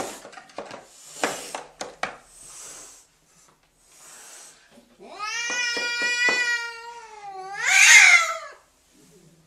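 Long-haired ginger cat yowling: one long drawn-out meow starting about five seconds in, then a louder, harsher yowl near the end. A few sharp clicks come in the first two seconds.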